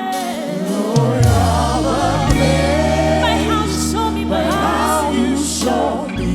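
Gospel choir singing with the band, a sustained bass note coming in about a second in.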